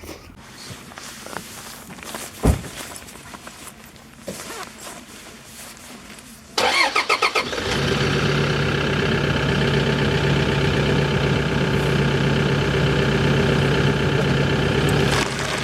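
A few light knocks and one sharp thump, then about two-thirds of the way in a car engine cranks briefly on its starter, catches, and settles into a steady idle.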